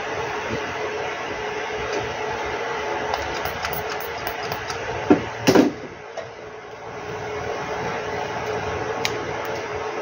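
A small electric fan motor running steadily with a constant hum, as from workbench repair equipment. A few sharp knocks and scrapes come about five seconds in, during board cleaning.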